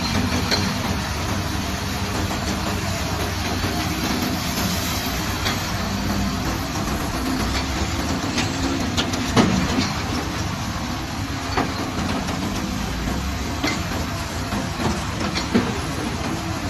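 Heavy construction machinery engine running with a steady low rumble, with scattered sharp knocks and clanks, the loudest about nine seconds in.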